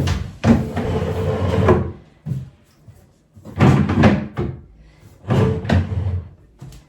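Flat-pack chest drawers being slid into their carcass, with three bouts of sliding and knocking, the first the longest.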